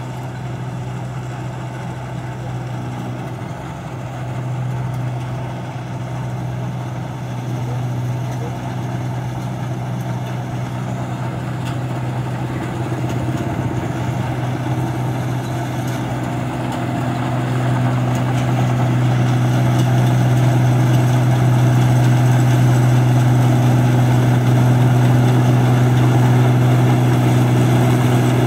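New Holland combine harvester's engine and threshing machinery running steadily while harvesting rice: a constant low hum that grows louder over the second half.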